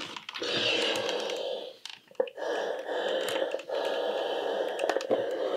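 Steam iron hissing out steam as it is pressed on knit fabric, with a short break about two seconds in.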